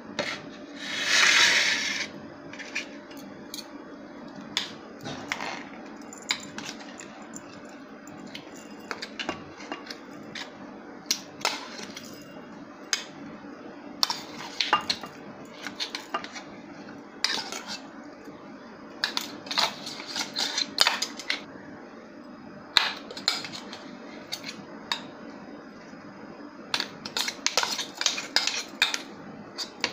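Steel spoon scraping and clinking against a stainless steel mixer jar as dry ground chutney is spooned out, with a longer scrape about a second in and scattered sharp taps. Near the end the taps come in quick clusters as the emptied jar is knocked against the plate.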